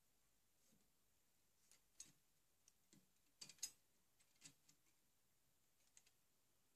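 Faint, irregular clicks and scrapes of a hand chisel being pressed into the wooden stock's trigger inlet, paring out wood, with the loudest cluster about halfway through.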